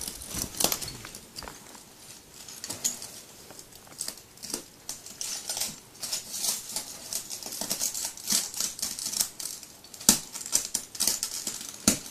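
Broken bottle glass crackling and cracking under the weight of a person lying on it: irregular sharp clicks and crunches. There is a louder snap about ten seconds in and another near the end.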